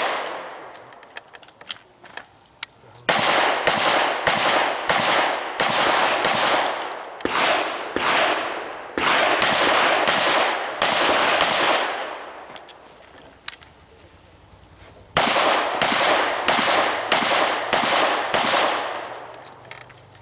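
Revolver gunfire in rapid strings, about two shots a second, with a pause after about twelve seconds before the next string of shots.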